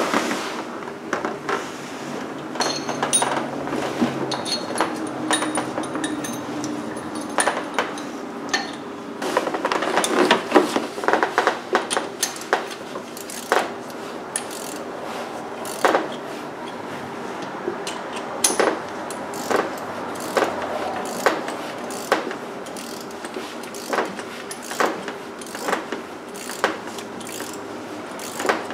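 Metal hand tools clinking and a hand ratchet clicking in short runs as a puller tool is bolted onto the crankshaft harmonic balancer. The clicks and knocks come irregularly, with denser runs a third of the way in and near the end.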